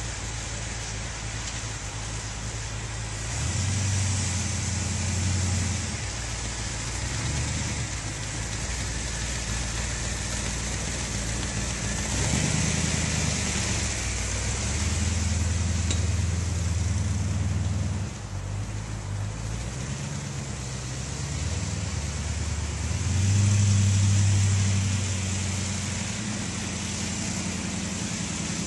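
Monster buggy's engine running as it is driven on its first run, surging louder several times as the throttle is opened, loudest near the end.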